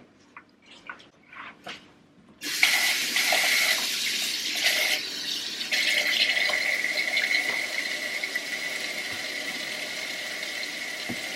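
A few faint clinks, then about two seconds in a kitchen sink faucet is turned on and runs steadily into the sink, a loud rush with a thin steady tone in it as the sink fills.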